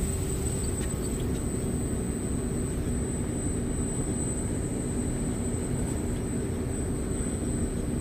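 LG Multi V VRF outdoor unit running: a steady low mechanical drone with a faint hum and a thin high whine.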